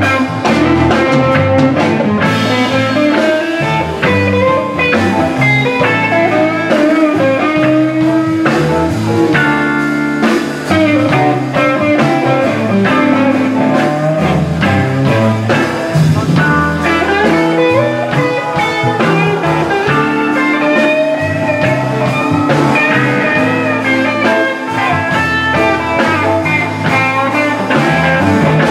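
Live blues band playing, with a Guytlin electric guitar taking an instrumental lead of quick single-note runs over keyboard and drums.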